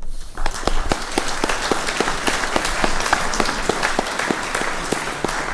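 Audience applauding: many hands clapping in a dense, steady patter that starts abruptly.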